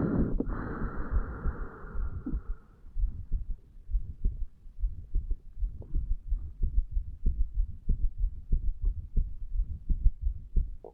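Human heartbeat recorded at the chest over the mitral valve area, a steady run of dull low thumps, in a 35-year-old man after drinking alcohol. A hiss lies over the beats for the first few seconds.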